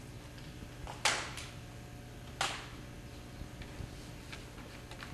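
Sharp smacks of drill rifles being handled in a precision rifle drill: two loud cracks, about a second in and about two and a half seconds in, with a fainter click just after the first, over a low steady hum.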